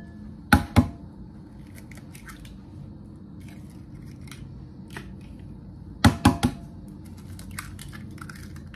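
Eggs being cracked on the rim of a glass bowl: two sharp taps a little over half a second in, then three quick taps about six seconds in, with faint small clicks of shell between.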